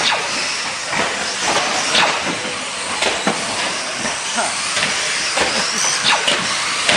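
Battery-electric RC rally cars racing on the track: a steady hiss of motors and tyres, broken by many sharp clacks and knocks, with brief high whines rising and falling.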